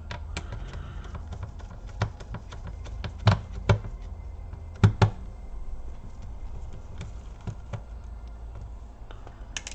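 Precision screwdriver unscrewing screws from a laptop's plastic bottom case: scattered light clicks and taps, with a few louder knocks between about two and five seconds in.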